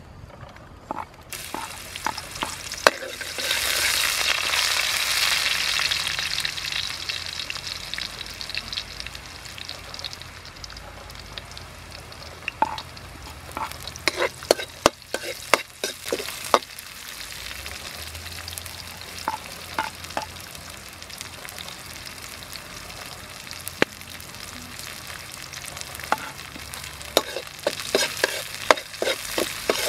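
Sliced garlic hitting hot oil in a metal wok, sizzling loudly a second or so in and slowly easing to a steady frying hiss. Later a metal ladle and spatula clack and scrape against the wok as the frying vegetables are stirred, most busily near the end.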